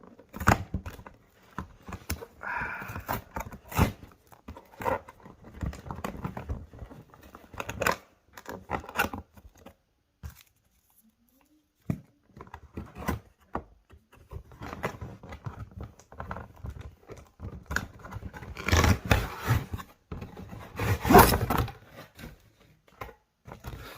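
Packaging of a boxed toy being handled and opened by hand: irregular clicks, scrapes and rustles of cardboard and plastic, stopping briefly about halfway, with a louder stretch of rustling and scraping near the end.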